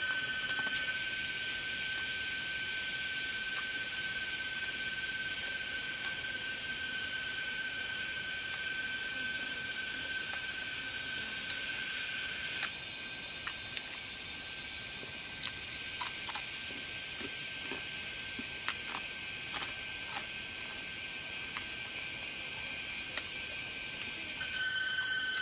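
Steady chorus of insects, crickets or cicadas, made of several shrill held tones; the mix of tones changes abruptly about halfway. A few light clicks come through in the second half.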